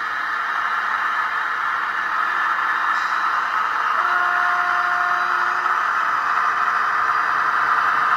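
An H0-scale Roco model of the DR V100 diesel locomotive pulling passenger coaches: a steady motor whir and wheel-on-rail rattle that slowly grows louder as the train comes closer.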